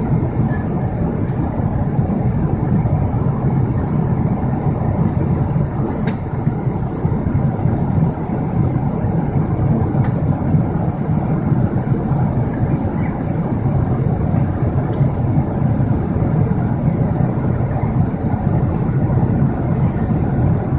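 Steady low drone of a Boeing 777-300ER's cabin in flight: the noise of its twin GE90-115B jet engines and the airflow over the fuselage, unchanging throughout.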